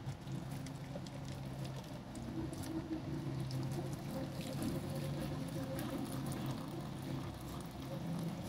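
Hot beef stock poured from a steel pot through a plastic strainer into a glass bowl, splashing and pattering steadily, with a steady low hum underneath.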